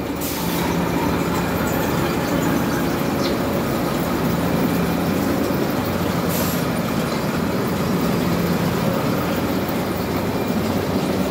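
Concrete batching plant machinery running steadily, a continuous mechanical rumble and hum from the aggregate conveyor and its drive motors. Two brief hisses cut through, one right at the start and one about six and a half seconds in.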